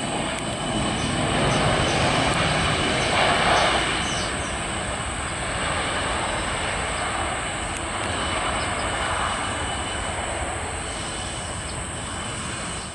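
Jet engines of a Garuda Indonesia Bombardier CRJ1000 regional jet running during its landing rollout just after touchdown, a steady rumbling roar that swells about one to four seconds in and then holds.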